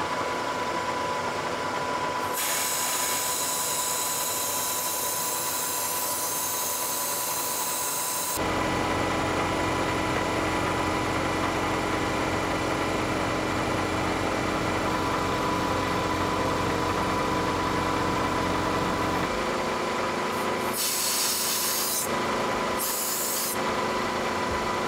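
Grinding wheel on the arbor of a Kearney & Trecker horizontal mill, running with a steady whine while it grinds the top of a hardened, weld-built-up steel rack. The hiss of the wheel on the hard steel comes and goes: strong from about two seconds to eight seconds in, then heavier and lower, then in two short bursts near the end.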